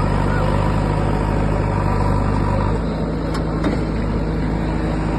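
Diesel engine of a bulldozer running steadily. Its low note shifts about three seconds in, and two faint knocks follow.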